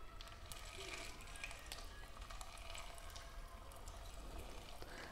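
Faint sizzling and light crackling of hot oil in a frying pan as potato-and-paneer batter is piped into it.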